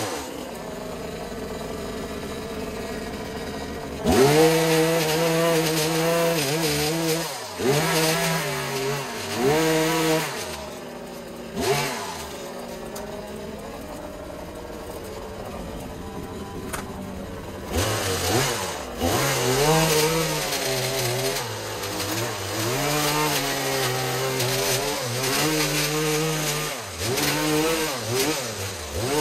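Small petrol engine of a handheld garden power tool, idling, then revved up and let back down in repeated bursts as it works. It drops back to idle for several seconds in the middle, then revs in bursts again.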